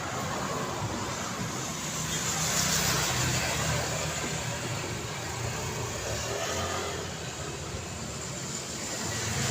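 Road traffic: steady tyre and engine noise of passing cars, with a low engine rumble underneath, swelling as one vehicle passes loudest about two to four seconds in.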